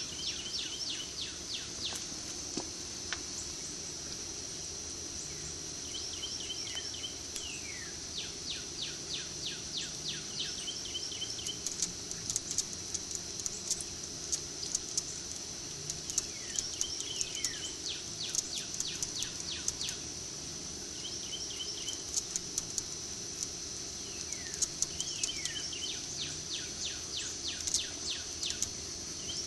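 Birds singing outdoors, a quick phrase of rapid high clicks, short downward slides and a brief trill repeated every few seconds, over a steady high-pitched insect drone.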